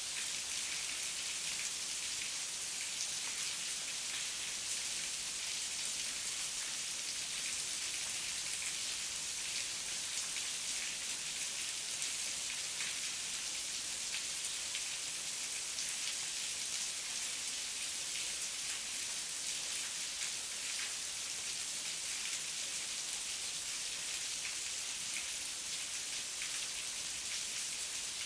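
Heavy rain falling steadily, a dense hiss of many drops pattering on leaves and ground, with no thunder.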